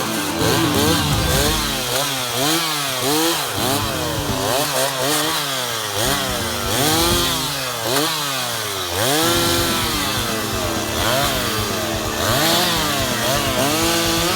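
Two-stroke chainsaw running, its engine revving up and dropping back again and again, about once a second.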